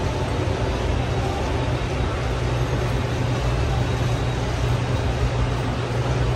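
Steady supermarket ambience: a constant low hum with a busy wash of indistinct background noise and faint distant voices.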